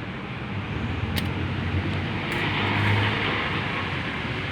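A motor vehicle's engine running close by, swelling to its loudest about three seconds in, over a steady low hum, with a single sharp click about a second in.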